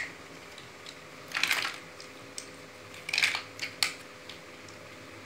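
Plastic Lego-style building bricks clicking and clattering as they are handled and pressed together: two short bursts of clatter, then a couple of sharp clicks.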